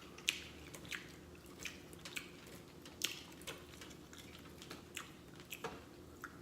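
A person chewing and smacking their lips while eating: a string of short, wet mouth clicks at irregular intervals.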